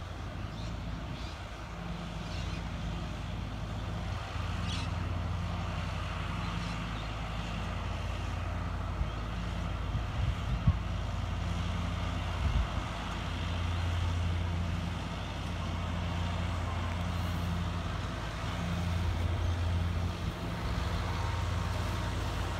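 John Deere tractor's diesel engine running steadily while pulling a rear-mounted mower across grass. It makes a low drone that swells and eases a few times as the tractor moves.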